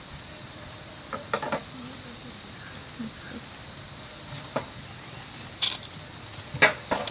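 A faint, steady, high-pitched insect drone, broken by about six short, sharp clicks and knocks of handling, the loudest near the end.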